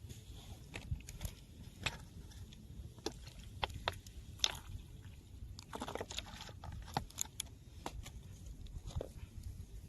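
Irregular small clicks and taps, about a dozen at uneven intervals, with a brief crackly rustle about six seconds in.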